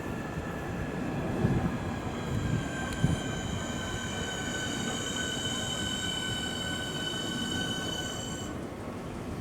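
Southeastern electric train moving along the platform with a high whine made of several tones, sinking slightly in pitch as it slows, over a low running rumble. The whine cuts off about eight and a half seconds in.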